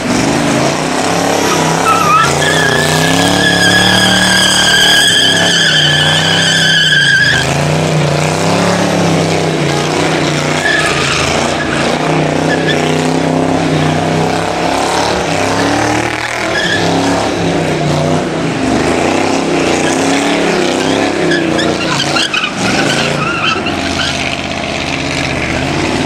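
Chevrolet Camaro race car doing burnouts and donuts: the engine revs hard, its pitch rising and falling, over the hiss of spinning tyres. A high, steady tyre squeal rings out about two seconds in and lasts some five seconds.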